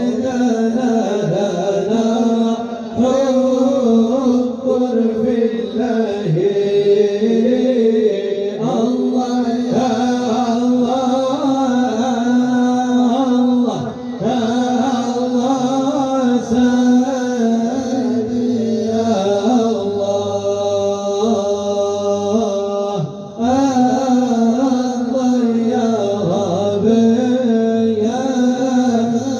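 Islamic devotional praise song (madih nabawi), a melismatic sung chant over a steady held low note, in long phrases with brief pauses between them.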